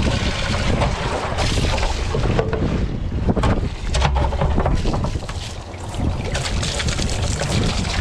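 Water from a garden hose splashing into a plastic tub, under heavy wind buffeting on the microphone.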